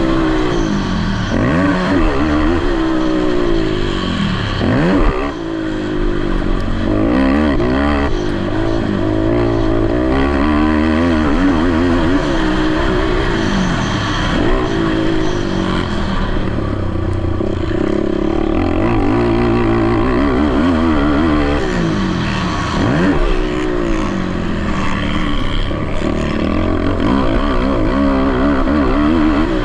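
Racing ATV engines revving, their pitch climbing and dropping over and over as the riders throttle and shift, with several engines overlapping.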